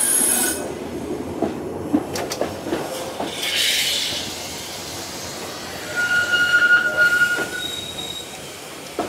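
Heritage electric tram running along the track, with occasional clicks from the wheels on the rails. The wheels squeal on the curve: a high squeal in the first half-second, then squealing tones again for about two seconds from around six seconds in.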